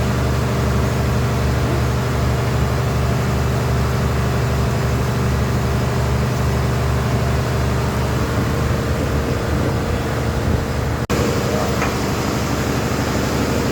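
An engine running at a steady idle, with an even low pulsing. The sound cuts out for an instant about eleven seconds in.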